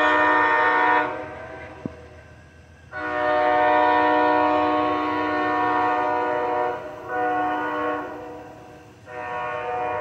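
Amtrak Texas Eagle locomotive horn sounding a multi-note chord from the approaching train: the end of one long blast, a long blast of about four seconds, a short blast, then another long blast starting near the end. This is the long-long-short-long grade-crossing signal.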